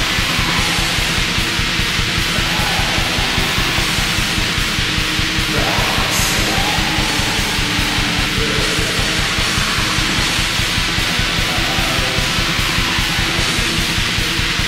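Black metal song: a dense wall of distorted guitars over fast, steady drumming.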